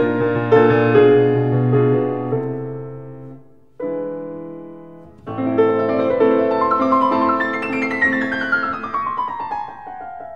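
Solo piano background music: sustained chords ringing and fading, fresh chords struck about four and five seconds in, then a descending run of notes near the end.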